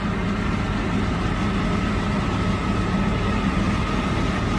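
Steady low drone of harvesting machinery engines running in the corn field, with a faint steady high whine over it.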